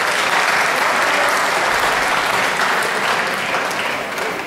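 Spectators applauding at the end of a badminton rally, the clapping dying away near the end.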